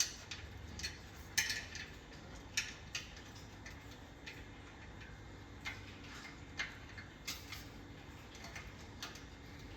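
Light metallic clicks and clinks at irregular intervals, a few sharper than the rest, as an iron rear bike rack is forced against the frame's mounting points.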